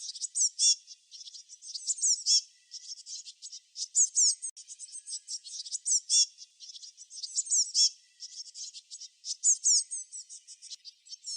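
Small songbirds chirping: a busy run of rapid, high-pitched notes and quick falling sweeps, with a louder phrase about every two seconds.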